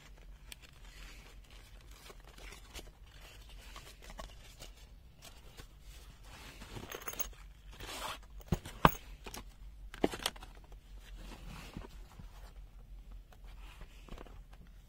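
Hands handling a screwdriver and bit set: rustling with scattered small clicks, and a few sharp clicks a little past halfway.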